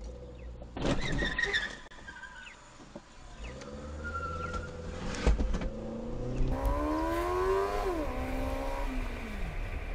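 A car strikes the dashcam car with a sharp crunch about a second in. Later the dashcam car's engine revs hard as it accelerates after the hit-and-run driver, rising in pitch, then falling away near the end.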